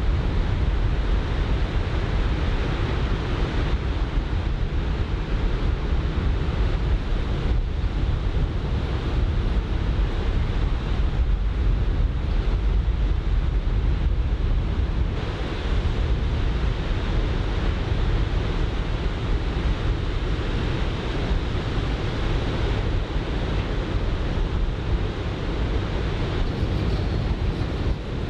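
Ocean surf from a typhoon swell breaking on the beach, mixed with steady wind rumbling on the microphone in an onshore wind.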